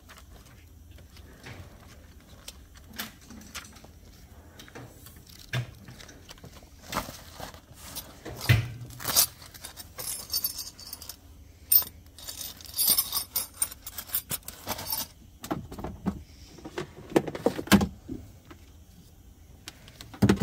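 Small metal items clinking and rattling as they are handled, with light knocks, in irregular bursts. They are busiest around the middle, with a few louder knocks near the end.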